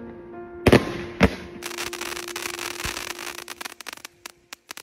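Fireworks going off: two sharp bangs in the first second and a half, then a dense crackling that thins into scattered pops near the end, with background music underneath.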